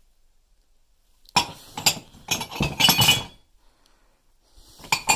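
China teacups clinking against one another as they are lifted out of a box of cups and set back. The clinks come in two bouts, the first starting over a second in and the second near the end.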